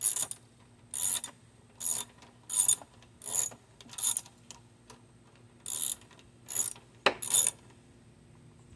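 Ratcheting socket wrench worked in short strokes, about one every three-quarters of a second, with a pause of over a second midway and a sharp click near the end, as it runs in the carburetor's mounting bolts.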